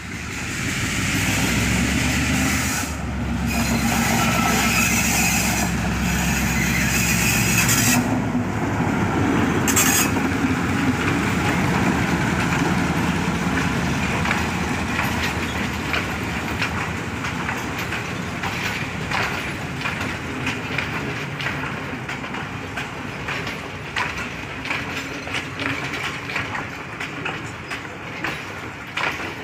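Sri Lanka Railways Class M2 diesel-electric locomotive running past at close range, its engine loud for the first eight seconds or so. After it, a string of passenger coaches rolls by, wheels clacking over the rail joints.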